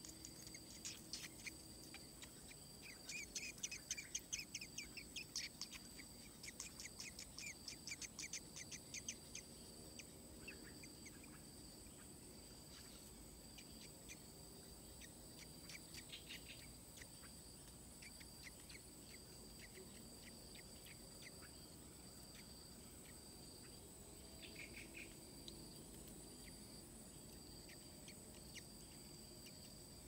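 Insects trilling steadily at two high pitches, with bursts of rapid high-pitched bird chirping, loudest and most continuous through the first third and returning briefly twice later.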